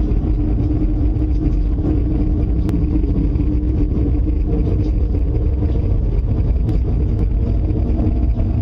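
A loud, steady low rumble with a constant hum over it, which the people hearing it fear is a tornado drawing close.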